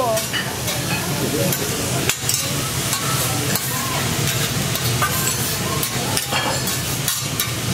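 Chopped vegetables and rice frying on a teppanyaki steel griddle with a steady sizzle, and a metal spatula clicking and scraping on the hot plate at irregular moments.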